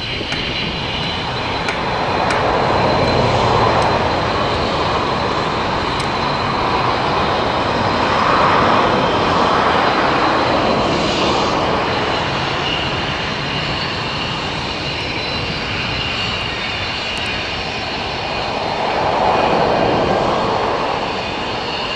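F-15 fighter jet's twin turbofan engines running as it taxis, a steady jet rush with a faint high whine above it, swelling and easing a few times.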